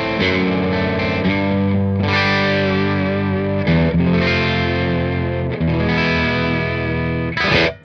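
Electric guitar played through the Silver Llama amp-sim plugin with its gain pushed up, giving a lightly overdriven vintage combo-amp tone. Sustained chords change every second or two, with a sharp strum near the end before the sound cuts off.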